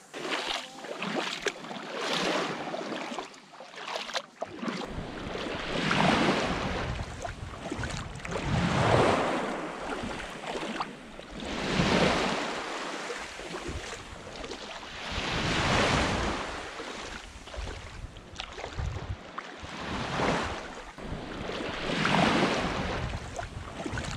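Small waves breaking and washing up on a sandy beach, the surf swelling and fading every three to four seconds. Wind rumbles on the microphone from about five seconds in.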